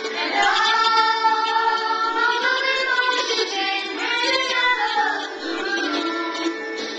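Three girls singing a song together, holding long notes that slide up and down in pitch.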